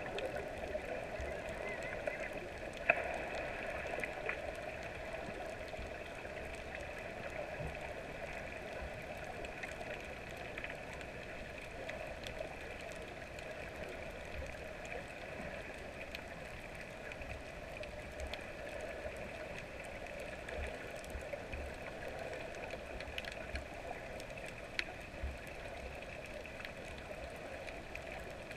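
Underwater ambience picked up by a submerged camera: a steady muffled hiss and hum, with scattered small clicks, one sharper click about three seconds in.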